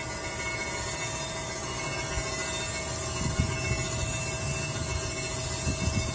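Crankshaft grinding machine running, its wheel grinding a journal on a Mitsubishi 6D22 crankshaft: a steady machine hum with a constant tone and a hiss of grinding.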